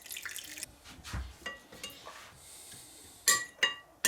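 A spoon stirring grated ginger and lemon juice in a glass: soft scraping and light taps, then two sharp ringing clinks of the spoon against the glass near the end.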